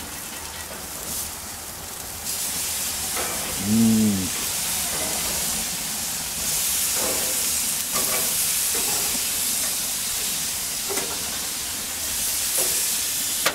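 Slices of maple-glazed back bacon sizzling on a hot gas grill as they are flipped, with a few light clicks and knocks of metal tongs. A brief voiced hum comes about four seconds in.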